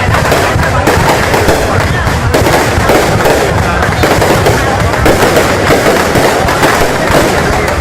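Aerial fireworks going off in a dense, rapid barrage of crackles and bangs, with no break, over the murmur of a crowd's voices.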